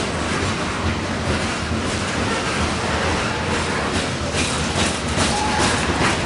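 Heavy freight train of loaded grain hopper cars rolling past with a steady rumble, the wheels clacking over rail joints, the clacks growing more frequent near the end.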